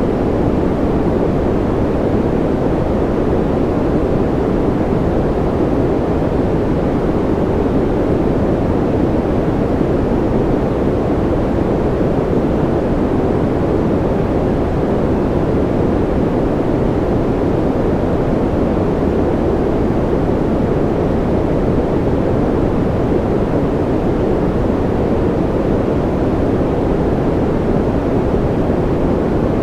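Steady white-noise track for sleep, a deep, dull rushing with little high hiss, unchanging throughout.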